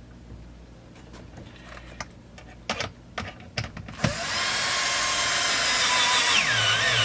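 Electric power drill/driver running steadily, its motor pitch dipping and wavering near the end as it comes under load. Before that, a few light clicks of small parts being handled.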